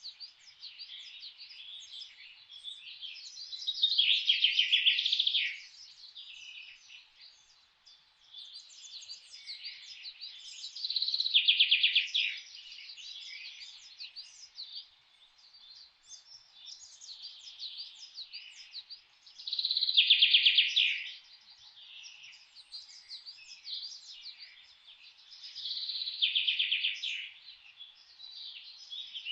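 Several songbirds chirping, with one bird repeating a loud, rapid trill four times, about every seven to eight seconds.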